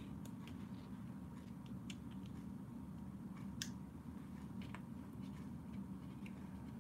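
Faint, scattered small clicks and taps from a paintbrush and painting supplies being handled on a desk, over a steady low room hum. The sharpest click comes about three and a half seconds in.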